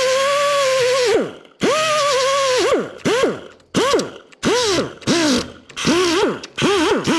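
Electric grinder grinding down weld on car-body sheet metal in a series of short bursts, about eight in all. Its whine rises as it spins up, sags in pitch while it bites into the metal, and falls away as it is let off between passes.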